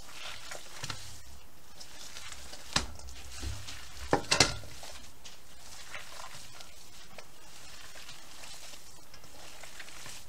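Gloved hands mixing raw ground beef with chopped peppers, onions and vegetables in a stainless steel bowl, with a few sharp knocks about three and four and a half seconds in.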